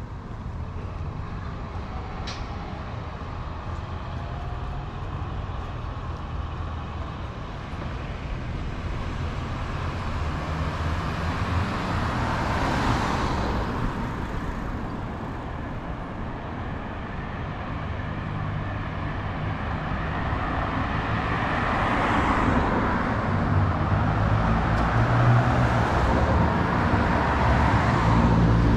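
Street traffic: cars going by, one passing about halfway through, then heavier traffic with a low rumble growing louder toward the end.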